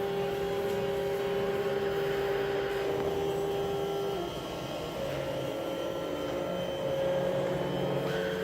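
Experimental drone music: long held tones over a hissy hum, with the main tone stepping up in pitch about five seconds in.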